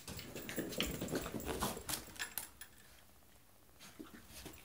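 Border terrier puppy making noise as it dashes about in play: a quick run of scuffs and clicks for the first couple of seconds, a quieter moment, then more near the end.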